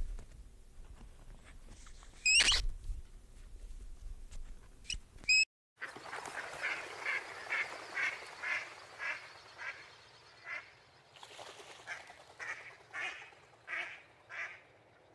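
Two sharp, high squeaks, then a duck quacking in a long series of short calls at about two a second, with a brief pause midway.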